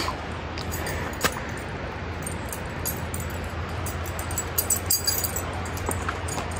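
Light metallic jingling and scattered clicks, thickest about five seconds in, over a steady low outdoor rumble.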